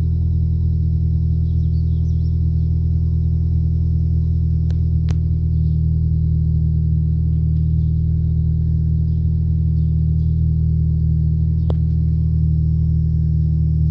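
Nissan Primera P11's 1.6-litre 16-valve four-cylinder petrol engine idling steadily at the tailpipe, a low, even exhaust hum. A few faint clicks come about five seconds in and again near the end.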